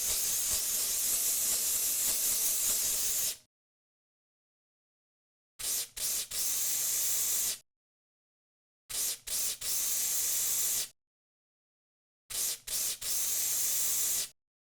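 Narrow-nozzle cockroach insecticide aerosol can spraying in hissing bursts: one long spray of about three and a half seconds, then three sprays of about two seconds, each opened by two or three quick short spurts, with dead silence between.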